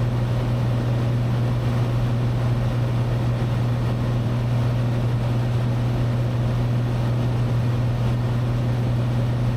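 Cessna 182T's Lycoming IO-540 six-cylinder engine and propeller droning in level cruise, heard from inside the cabin: a steady low hum that holds the same pitch throughout.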